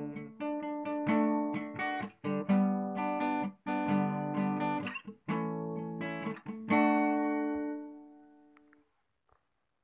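Acoustic guitar strumming chords as the closing bars of a song's accompaniment, ending on a final chord about seven seconds in that rings out and fades away.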